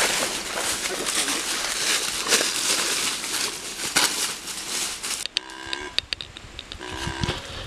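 Footsteps crunching and crackling through dry fallen leaves as several people walk quickly along a woodland trail. Near the end the crunching stops and two short wavering calls are heard.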